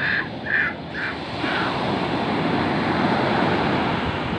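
Surf breaking and washing up a sandy beach, swelling through the middle. Over the first second and a half, four short harsh calls that grow fainter.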